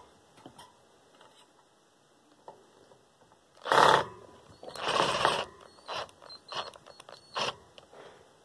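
Screwdriver working screws out of a desk fan's plastic housing. About four seconds in come two short scraping rasps, followed by a few light clicks and knocks of the parts.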